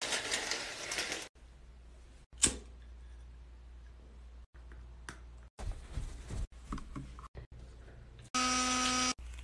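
A brief rustle of window blinds being opened and a single knock, then an electric toothbrush switched on, buzzing with a steady hum for about a second near the end.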